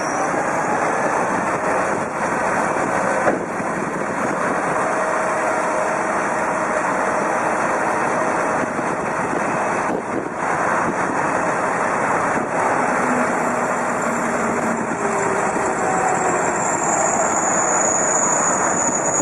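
Large farm tractor's diesel engine running steadily under heavy load as it hauls a multi-axle hooklift trailer through deep mud.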